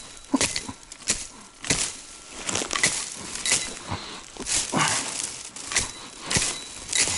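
Axe chopping into low shrubs and brush at ground level: about a dozen sharp strikes, irregularly spaced, more than one a second.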